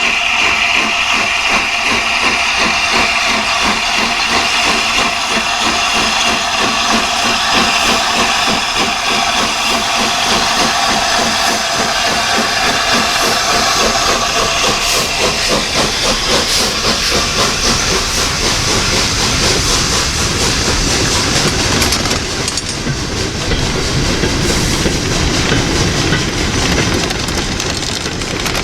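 Steam locomotive working a train: a rapid, even beat of exhaust with steam hissing, a steady high tone over the first dozen seconds, and the noise of the passing train's wheels on the rails taking over toward the end.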